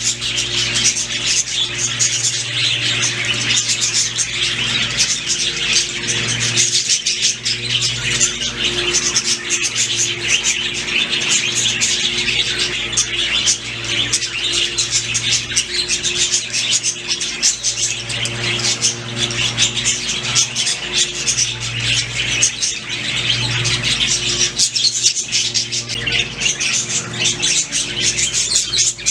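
Budgerigars chirping and singing, a dense, continuous stream of quick high chirps, over a steady low hum.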